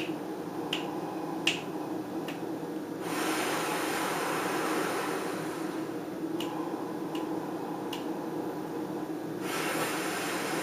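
A man doing a paced breathing exercise, in for four counts and out for four: a long, airy exhale of about three seconds begins about three seconds in, and another starts near the end. Between them the quieter inhale stretches carry sharp ticks keeping the count, about every three-quarters of a second.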